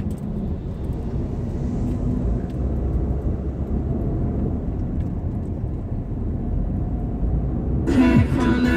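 Steady low rumble of road and engine noise inside a moving car's cabin on the highway. Music starts near the end.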